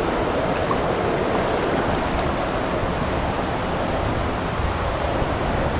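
River rapid's whitewater rushing, a steady loud wash of water.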